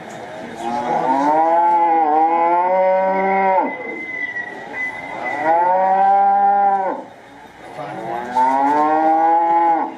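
Recorded cow moos played through a small high-output speaker built into a model barn: three long moos, one after another.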